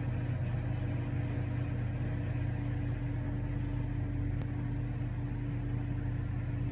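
A steady low hum of a motor or appliance running, unchanging throughout.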